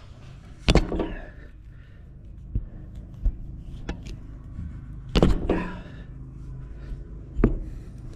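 Clicks and thumps of a Caterpillar 5H4845 windshield installation tool being worked along a rubber glazing gasket, feeding the locking strip into its groove. Three louder thumps stand out: about a second in, around five seconds in and near the end. A low steady hum runs underneath.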